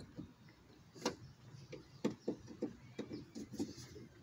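Phillips screwdriver tightening small plastic screws, giving a series of faint, irregular clicks that come closer together in the second half.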